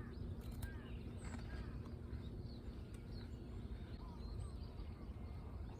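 Faint short bird chirps scattered over a low steady rumble, with a couple of sharp clicks about half a second in.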